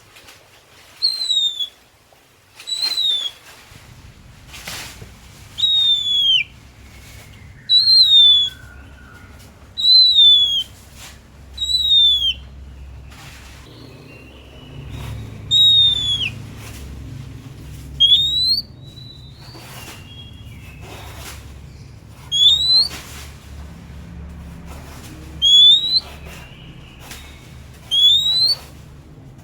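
Oriental magpie-robin (kacer) singing: a series of loud, clear single whistled notes about two seconds apart. The early notes slur downward in pitch and the later ones slur upward, with softer short notes in between.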